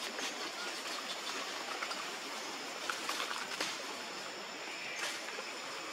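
Steady outdoor background hiss, with a few light rustles and clicks around three seconds in and again about five seconds in.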